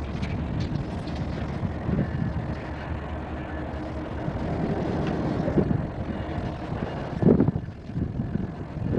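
Steady low rumble of road traffic passing over a bridge overhead, with a brief louder swell about seven seconds in.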